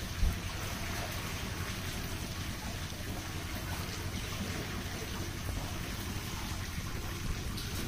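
Water trickling and splashing steadily, with one short thump about a quarter second in.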